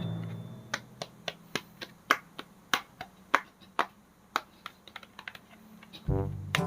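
Irregular sharp clicks and taps, a few a second, over a fading music bed. Music with a brass melody comes back in about six seconds in.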